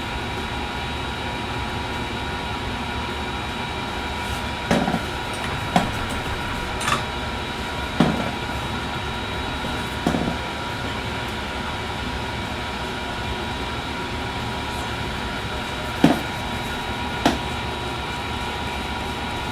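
Steady fan-like whirring hum with a faint high whine, broken by about seven short clicks and taps of small hand tools working on the phone's board.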